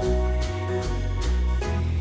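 Background music: an instrumental track with a steady beat, bass and mallet-like melody notes.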